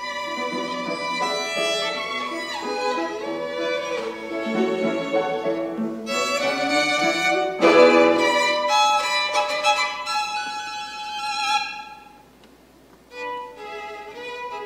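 Violin played with a bow in a classical recital piece, with accompaniment beneath it. Near the end the music breaks off for about a second, then resumes more softly.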